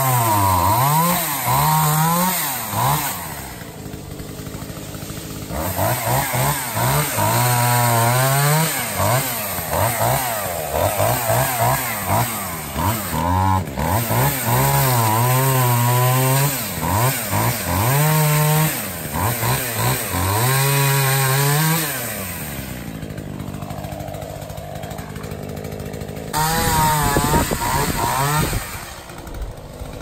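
Chainsaw revving up and down again and again as it cuts through the stems of an overgrown shrub-tree. It drops to a lower, quieter running for a couple of seconds a few seconds in, and for several seconds near the end.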